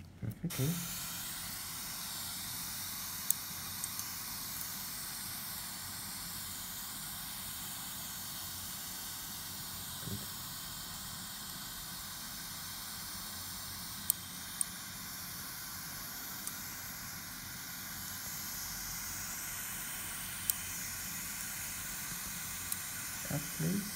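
Dental suction hissing steadily, with a few sharp clicks of metal suturing instruments (needle holder) against each other during stitching.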